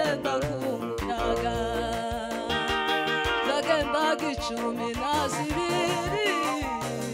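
A woman singing a Kinyarwanda song into a microphone, over electronic keyboard accompaniment with a steady beat.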